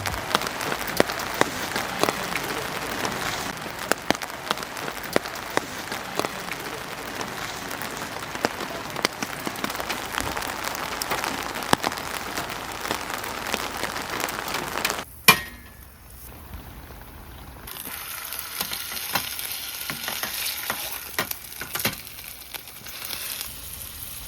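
Rain pattering steadily, with many sharp irregular drops. About fifteen seconds in there is a single loud click, and the sound cuts to a quieter passage with a steady high hiss.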